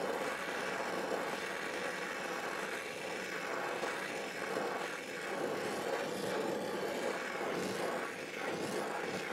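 Oxyacetylene torch flame burning steadily against a knife blade, heating it for silver soldering to about 1,100 degrees, just short of red heat.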